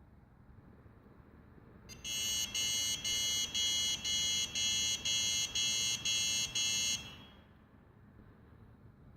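Huanan X79 Deluxe motherboard's POST buzzer sounding about ten high beeps in quick succession, about two a second, starting about two seconds in and stopping about five seconds later. It is an error beep code from a board that fails to start.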